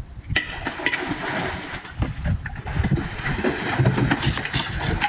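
Water splashing and sloshing in a shallow pool as a tiger moves through it, in irregular bursts that start about half a second in.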